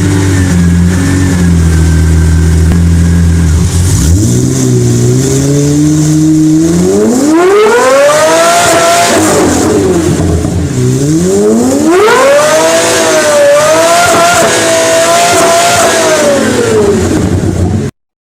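Race car engine sound effect: a low steady idle, then two long rev-ups in which the pitch climbs high and falls back. It cuts off abruptly near the end.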